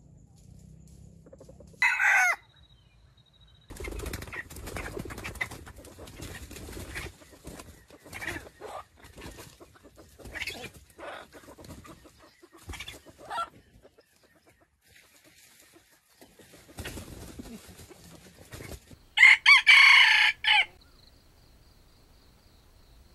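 Red junglefowl roosters: a short loud call about two seconds in, then stretches of crackling and rustling in dry leaf litter, and near the end a loud crow of about a second and a half.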